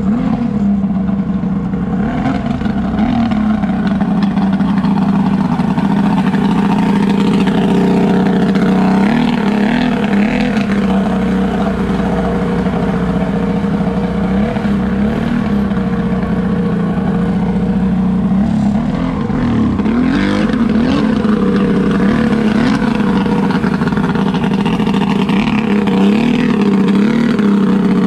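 Mini jet boat's three-cylinder two-stroke engine running steadily under way, its pitch swelling and dipping several times with the throttle, over the rush of water from the jet.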